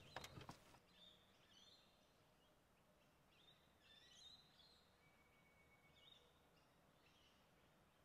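Near silence: faint outdoor ambience with a few soft bird chirps and a couple of small clicks near the start.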